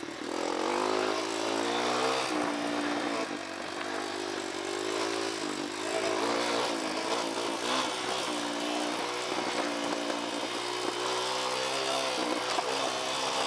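Dirt bike engine revved up and down over and over while descending, its pitch rising and falling every second or two. It is kept revving to stop the spark plug fouling and to clean it out after it began to foul on the way down.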